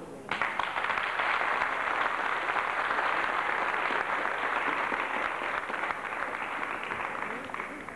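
Hall audience and cast applauding: a burst of clapping that starts suddenly, holds steady, and tails off near the end.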